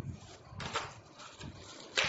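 Plastic wrapping and cardboard packaging being handled, rustling and crinkling irregularly, with a louder crinkle about half a second in and a sharp one at the end.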